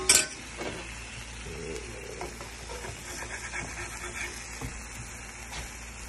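Birria tacos frying in meat broth in a skillet: a steady sizzle with small pops. Right at the start a loud, sharp clatter of a utensil against the pan.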